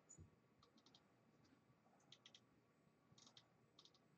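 Near silence with faint, scattered clicks, several coming in quick clusters of two to four.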